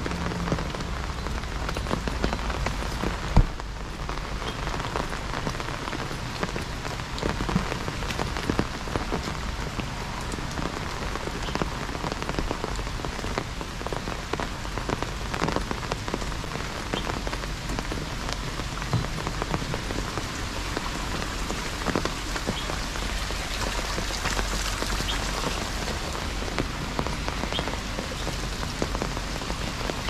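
Heavy rain falling steadily on an umbrella and the surrounding leaves, with many individual drops tapping the umbrella. One sharper knock stands out about three seconds in.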